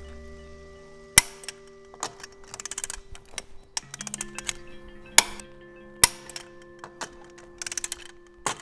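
Background music: sustained chords that change about four seconds in, with sharp clicks and quick runs of ticking layered over them.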